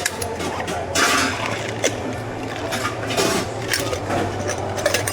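Drink-making equipment and utensils in a bubble tea shop clicking, clattering and rustling at irregular intervals, over a steady low machine hum.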